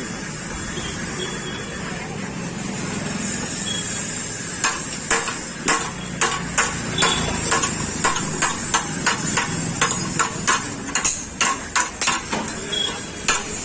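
Hammer blows on the steel frame of a motorcycle being straightened. They start about four and a half seconds in, come about twice a second, and quicken near the end.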